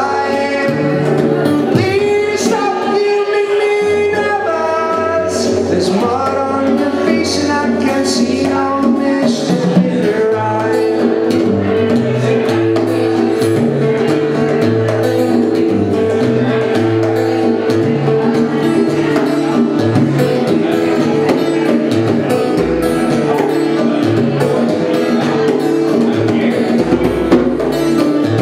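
Live acoustic music: a man sings over strummed acoustic guitar with hand-played bongos. The singing stops about ten seconds in, and the guitar and bongos carry on.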